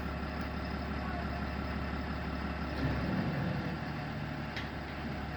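Dump truck engine running steadily at low revs while the truck is slowly backed up, with a brief slight rise in level about three seconds in.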